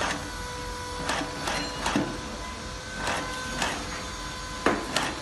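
Shoe-making machine working with a run of short mechanical strokes, roughly one or two a second and unevenly spaced, over a faint steady hum.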